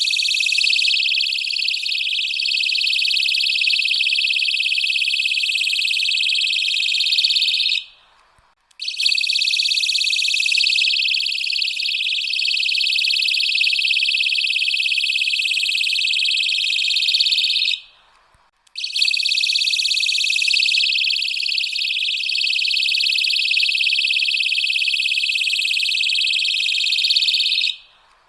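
Handheld personal safety alarm sounding a loud, high-pitched electronic wail in three blasts of about nine seconds each, cut by roughly one-second breaks, with the next blast starting again at the very end.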